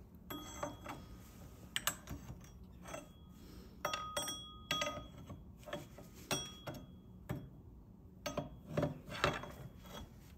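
Hand tools clanking and clinking against metal car parts: irregular sharp knocks, several with a brief metallic ring, and some scraping in between.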